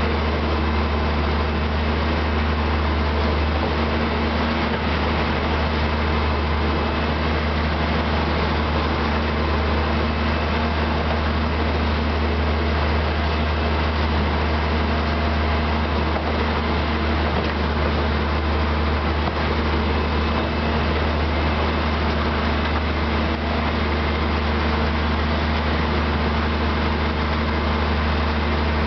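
Diesel locomotive of a metre-gauge narrow-gauge railway running steadily: a deep, even engine hum with no change in pitch or loudness.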